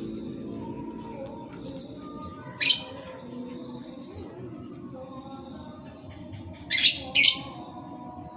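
Small birds chirping repeatedly over a low steady background hum, with three short, loud, harsh sounds: one about two and a half seconds in, and two close together near the end.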